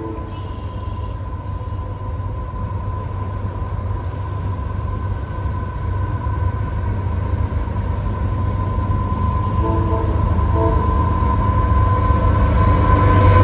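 CSX diesel locomotive approaching, its low engine rumble growing steadily louder. A couple of short horn notes sound about ten seconds in.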